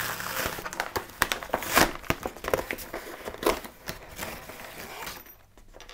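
Brown paper padded mailer being handled and torn open: irregular crinkling and tearing of the paper, dying down near the end.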